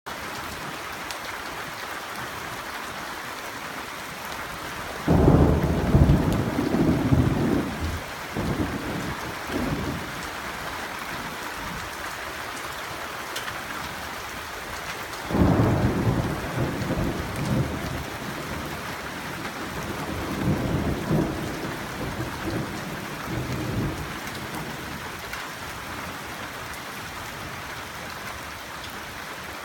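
Thunderstorm: steady rain falling, with two rolls of thunder. The first starts suddenly about five seconds in and rumbles on for a few seconds; the second starts about fifteen seconds in and is followed by lighter rumbles that die away.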